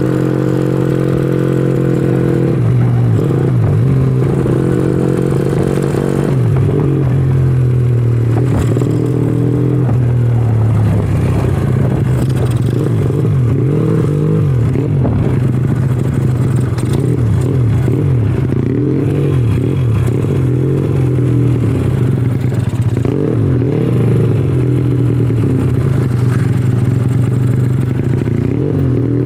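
Honda Astrea Legenda 2's four-stroke single-cylinder engine running hard on a test run. The revs are held high briefly, then rise and fall again and again as the throttle is worked. The builder judges the carburettor setting, pilot jet 42 and main jet 120, still too rich at low revs.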